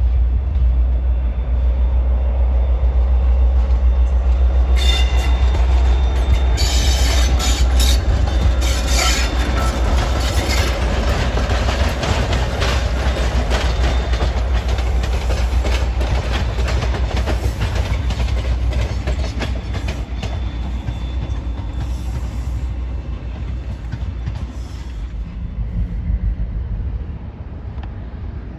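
Diesel locomotive hauling coaches past at close range: a steady low engine rumble with rapid clicking of wheels over the rail joints. The sound fades near the end.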